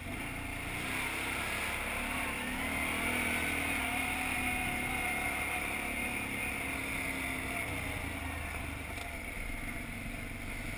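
Four-wheeler ATV engine running while being ridden, its pitch rising and falling a little with the throttle.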